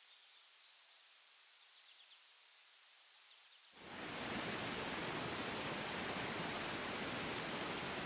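Faint forest ambience with an insect chirping in an even, rapid pulse and a few faint bird chirps. About four seconds in it gives way quickly to the loud, steady rush of a waterfall cascading over rocks.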